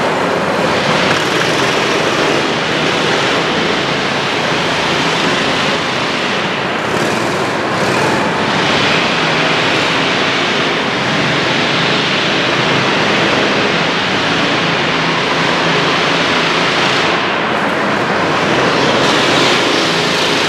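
Go-kart engines running around an indoor track, merging into a continuous, echoing din that swells and eases a little as karts pass.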